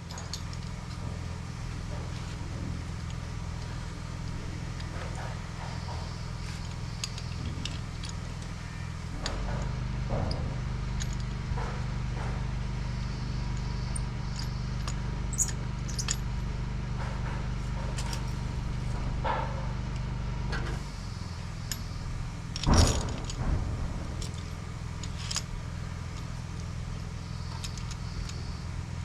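Scattered metallic clinks and taps of tools and bolt hardware being fitted to an engine's accessory bracket, with one sharper clank about two-thirds of the way in. Beneath them runs a steady low machinery drone that grows louder for about ten seconds in the middle.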